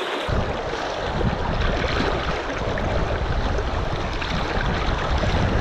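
Fast river current rushing and splashing close to the microphone, a steady wash of water noise with a low rumble under it.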